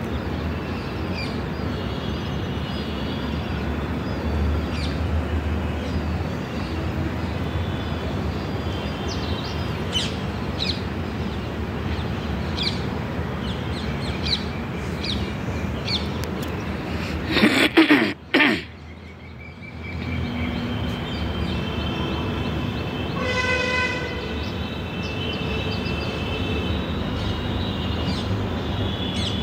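Small birds chirping again and again over a steady low outdoor rumble. About eighteen seconds in, a brief loud rustling noise drowns everything and the background drops away for a couple of seconds after it. A few seconds later comes a short horn toot.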